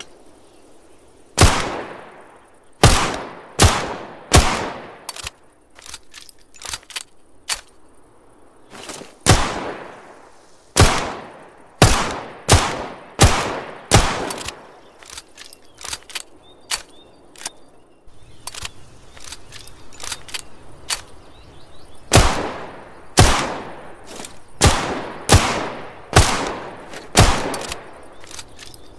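Smith & Wesson Model 686 .357 Magnum revolver firing single shots at an uneven pace, in groups of two to five, each shot sharp with a fading ring-out. Fainter shots are heard between the loud groups, most of all in a lull about midway.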